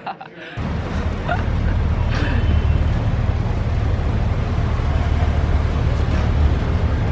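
Busy city road traffic: a steady rumble of engines and tyres that starts suddenly about half a second in.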